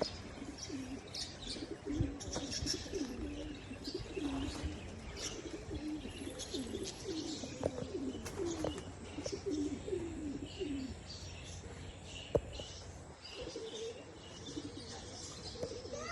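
Racing pigeons cooing over and over, thinning out about two-thirds of the way through, with higher chirping from small birds and a few sharp clicks.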